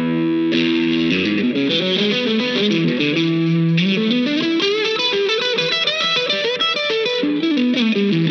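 Electric guitar, a Fender Stratocaster, played through an amp: a held chord, then a lead line of runs rising and falling with bent notes. Heard through a condenser mic and a dynamic mic placed side by side on the speaker.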